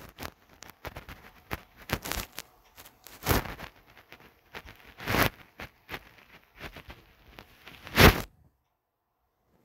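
Irregular close rustling and clicking, with three louder knocks about three, five and eight seconds in, then a short quiet spell near the end: handling noise on a phone's microphone.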